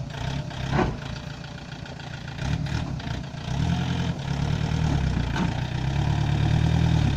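Toyota Land Cruiser's engine running at low revs on the rocks, then growing steadily louder from about three and a half seconds in as it is given more throttle. A single sharp knock sounds about a second in.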